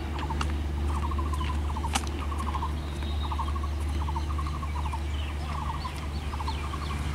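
Steady low rumble of the departing train's WDM3A diesel locomotive. Over it, a bird repeats a short rapid trill over and over, and there are a few sharp clicks.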